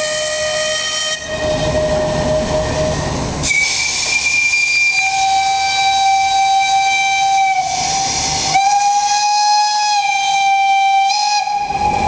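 Ships' steam whistles blowing long, overlapping blasts at different pitches. A lower whistle sounds for about the first three seconds, then a high whistle starts and a mid-pitched one joins it, the two held together with a short break about two-thirds of the way in.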